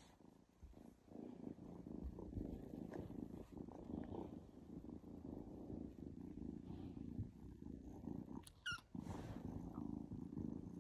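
Young black kitten purring softly and steadily while being stroked, with a short break about nine seconds in.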